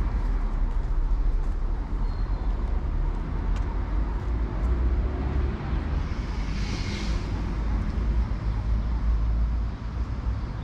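Street traffic noise heard on foot: passing cars and other vehicles over a steady deep rumble, with a short hiss about seven seconds in.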